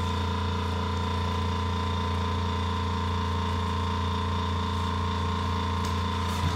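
Steady machine hum: a strong low drone with a few fixed higher tones, unchanging throughout.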